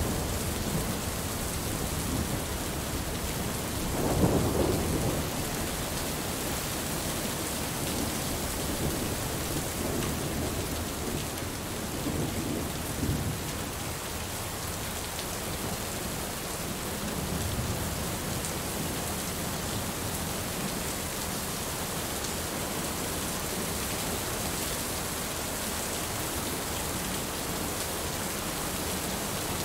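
Heavy rain falling in a steady hiss, with thunder rumbling low underneath. A rumble swells about four seconds in, and fainter rumbles come and go later.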